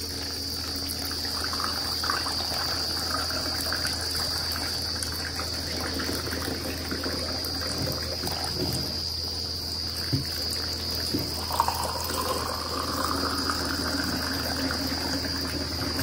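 Muddy water trickling out of the neck of a plastic bottle of bare soil into a glass, washing the soil away with it. A steady high insect drone like crickets carries on underneath, and there are a couple of small knocks about ten seconds in.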